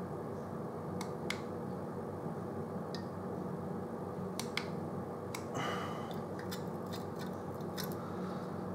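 Light, scattered clicks over a steady low hum: a box mod's fire button being pressed to pulse freshly built dual Clapton coils dry, before any cotton is in. A brief hiss comes a little past halfway.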